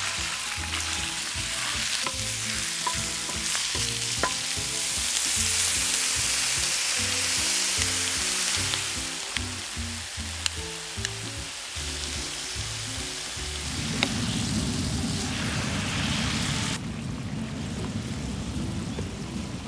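Pork pieces sizzling loudly as they fry on a hot cast-iron pot-lid griddle, with kimchi added and stirred through using metal tongs that click now and then. The sizzle eases off sharply near the end.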